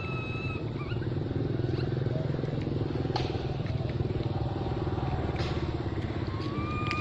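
An engine running steadily close by, its low hum the loudest sound. Over it, a baby long-tailed macaque gives short thin whistling cries in the first second and again near the end, with two sharp clicks in between.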